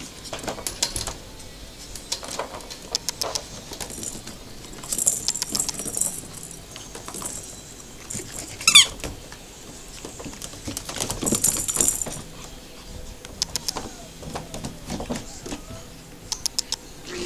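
Maltese puppies playing with a hollow plastic toy ball that jingles in bursts as it is nosed and batted about, with light clicks and scuffling on the pen's plastic floor. About halfway through there is one short, sharp, high squeal, the loudest sound here.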